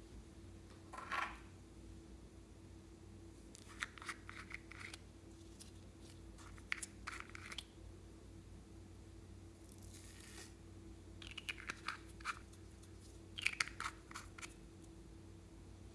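Fingers handling small plastic makeup and sequin containers and clay pieces: short clusters of clicks, crackles and crinkles, about six bursts, with a soft rushing hiss about ten seconds in.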